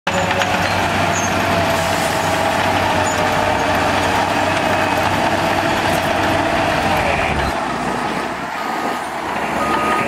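Komatsu D61PX crawler bulldozer's diesel engine running under load, with dump truck engines on the site. The heavy engine sound drops away about seven and a half seconds in, and a reversing beeper starts sounding short repeated beeps near the end.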